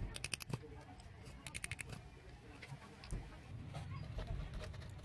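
Quick runs of sharp clicks from a pointed metal tool being twisted into a plastic bottle cap, twice, about a second and a half apart.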